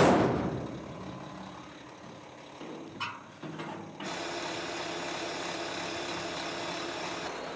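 A loud rush of noise that fades within the first half second and a short knock about three seconds in; then, about four seconds in, a truck's diesel engine comes in and runs steadily, the crane truck ready to hoist the rhino crate.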